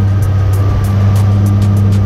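Car engine running steadily at idle, a constant low hum, with music playing along.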